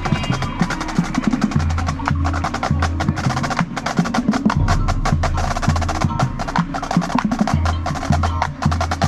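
High school marching band percussion playing a fast rhythmic passage: a dense stream of crisp drum and rim strokes, while the horns are held down.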